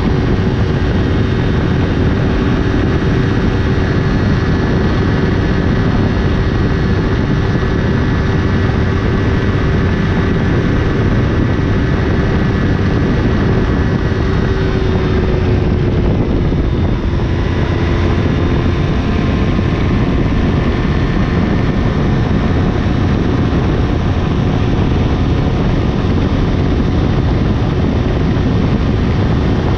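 Yamaha R3's parallel-twin engine with a LeoVince LV10 exhaust, held at high rpm near top speed, around 110 mph, under heavy wind rush on the microphone. The engine note holds steady and dips slightly about halfway through.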